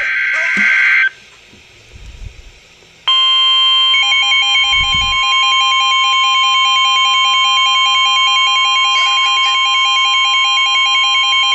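Emergency Alert System severe thunderstorm warning tones. A one-second screech of the digital data header comes first, then a pause. About three seconds in, a steady alert tone just above 1 kHz starts and holds, with a fast pulsing, warbling beep sounding over it.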